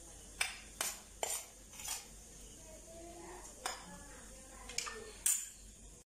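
A metal spoon clinking and scraping against a stainless steel mixer-grinder jar while grated coconut is spooned in: about seven sharp, irregular clinks.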